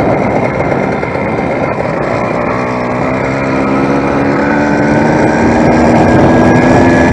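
Two-stroke engine of a YD100 motorized bicycle running loudly. About two and a half seconds in, its rough sound settles into a steady, even pitch and grows slightly louder.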